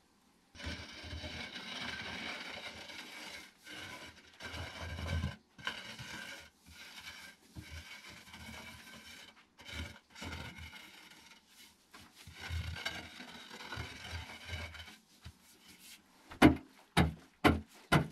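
Short-handled digging tool scraping and rasping across a packed dirt floor in uneven strokes, then, near the end, chopping into the ground in quick, regular strikes about two or three a second, louder than the scraping.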